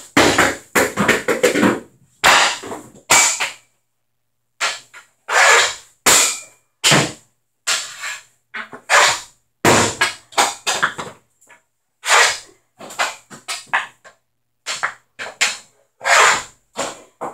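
Hockey stick shots with a CCM Heat stick: repeated sharp cracks of the blade striking rubber pucks and the floor, the strikes coming in quick clusters every second or two.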